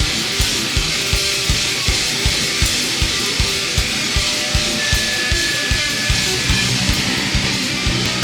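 Heavy metal music: distorted electric guitar over a fast, steady beat of kick drum, about three strokes a second.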